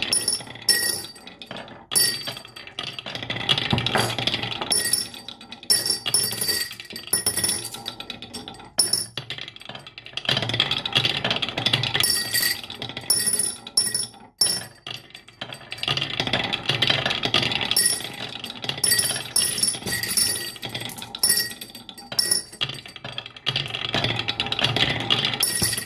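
Marbles rolling and clattering down a toy marble run, with many quick clicks and clinks as they drop and hit track pieces. High ringing tones come and go throughout.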